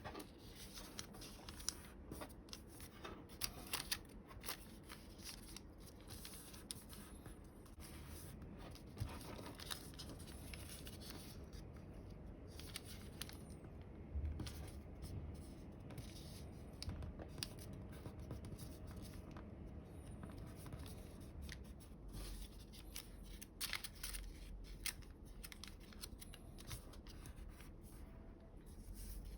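Square of coloured origami paper being handled, folded and creased by hand: irregular crisp rustles and sharp crackles as the folds are pressed down.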